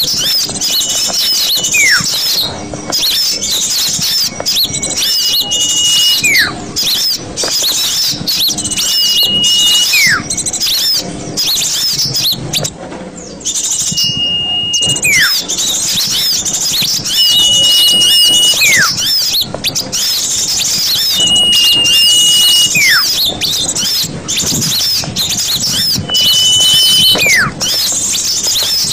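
Bird-lure recording of many small birds chirping busily. Every few seconds a whistled call cuts through, a held high note that slides sharply down in pitch.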